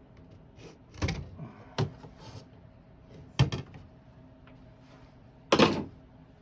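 Aluminum camper window frame parts being handled on a workbench: four separate knocks and clunks, the last one the loudest and longest.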